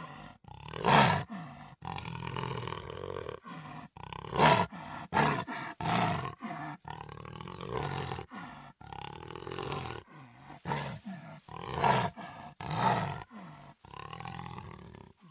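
Jaguar growling: a continuous low growl broken by several short, louder roars, about a second in, around four to six seconds, and twice near the end; it stops abruptly.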